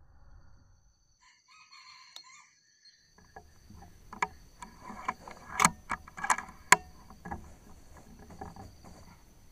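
Junglefowl rooster calling: a faint call about a second in, then a cluster of loud, sharp calls between about four and seven seconds in.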